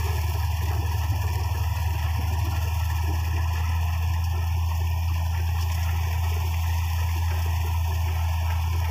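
M132 combine harvester running under load while cutting wheat: a steady low engine drone with the rattle of its header and threshing machinery. Its feeder house chain is loose.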